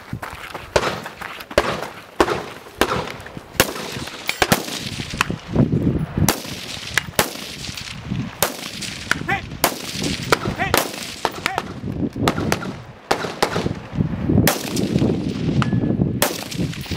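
Rifle shots fired one after another at an uneven pace, close to one a second, each a sharp crack.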